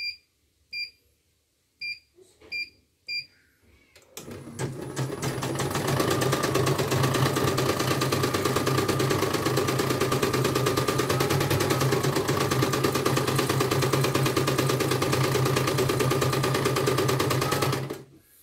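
CNY portable embroidery machine: several short beeps from its control-panel keys, then about four seconds in the machine starts up and stitches at a steady, even rate, stopping near the end.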